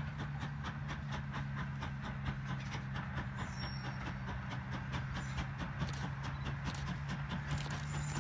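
Train running on the rails: repeated sharp clicks of wheels over rail joints over a steady low hum.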